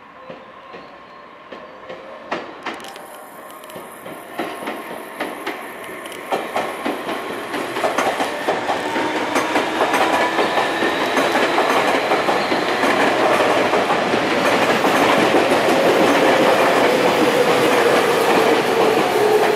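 Tobu Urban Park Line electric train running past at close range, its wheels clacking over the rail joints. It grows steadily louder as it nears, and a motor whine falls in pitch near the end.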